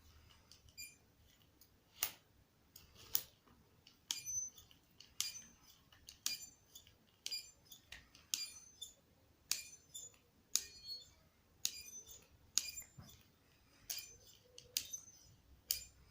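Ratchet cable cutter being worked by hand: sharp metallic clicks of the ratchet, a click or a short cluster of clicks about once a second with each stroke of the handles.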